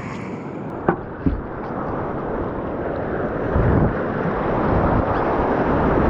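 Rushing white water of an artificial rapids course as a kayak runs down it, growing louder through the middle. Two short sharp knocks come about a second in.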